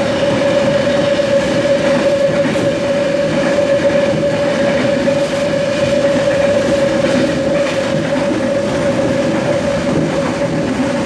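Trensurb Série 100 Hitachi electric multiple unit running at steady speed, heard from on board. Its traction motors give a loud, steady whine of constant pitch over the rumble of the wheels on the track.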